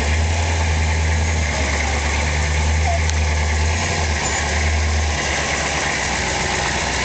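Built Hummer H1's engine running at low revs as the truck crawls slowly over a log on rock. The low rumble is steady and strong, then drops back about five seconds in.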